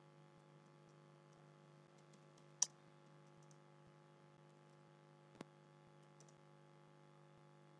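Near silence with faint computer keyboard typing: scattered soft keystrokes, one sharper click about two and a half seconds in and a smaller one a little after five seconds, over a low steady hum.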